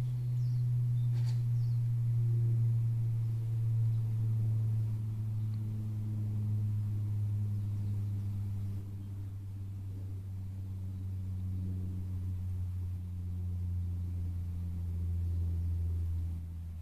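Jet aircraft passing overhead: a steady low drone that slides slowly down in pitch as the plane goes by.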